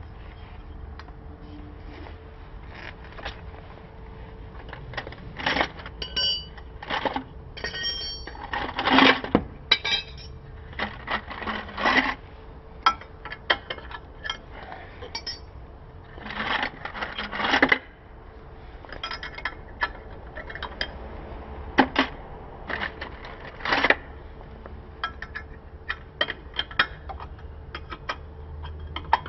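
Metal hand tools and parts clinking and knocking in irregular clusters of sharp clinks, some ringing briefly, as they are handled while a motorcycle's rear wheel is taken off.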